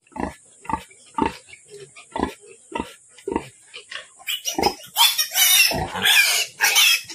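A sow nursing her litter, giving short rhythmic grunts about twice a second. From about four seconds in, the piglets squeal loudly and shrilly as they jostle at the teats.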